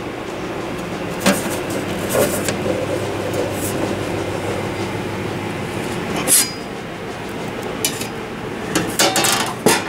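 Sheet-metal inner cover of a General Radio RF signal generator being handled and lifted off its chassis, giving scattered light metallic clinks and knocks with a cluster of them near the end. A steady background hum runs underneath.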